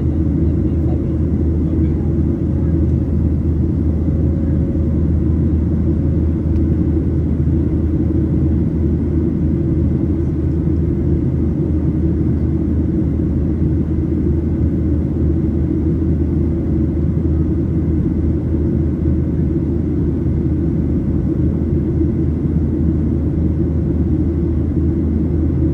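Steady low rumble of an airplane's engines, holding an even level with no rise or fall in pitch.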